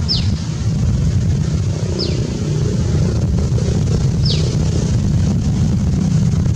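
Wind buffeting the microphone as a loud low rumble, with a bird calling three times, each call a short whistle falling in pitch, about two seconds apart.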